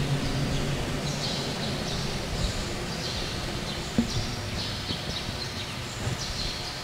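Background ambience with birds chirping in short repeated calls. There are two soft knocks, about four and six seconds in.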